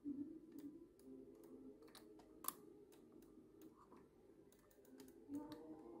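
Faint, irregular small clicks of the Siemens EQ8 coffee machine's control knob, a rotary encoder, being turned through its detents, with one louder click about two and a half seconds in.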